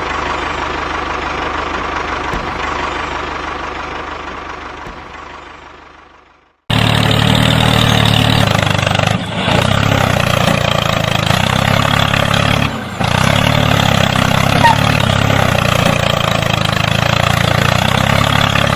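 A machine running steadily fades out about six seconds in. After a moment of silence, an engine sound cuts in abruptly and runs steadily, dipping briefly twice.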